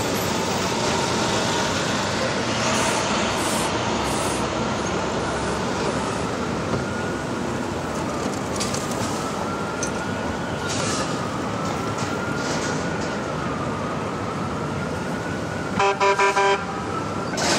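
Busy city street traffic with a siren wailing faintly in the distance, its pitch slowly rising and falling. Near the end a vehicle horn gives three short honks.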